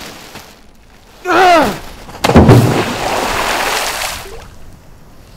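A man's short yell, falling in pitch, then a loud impact followed by a splashing rush that fades out over about two seconds.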